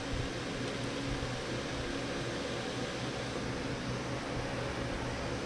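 Steady hum and hiss of a running fan, even throughout, with no distinct handling sounds.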